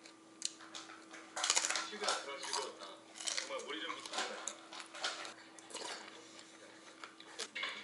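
Metal chopsticks and a spoon clinking and scraping against an aluminium pot and a bowl in a string of short, irregular clicks, with chewing between them.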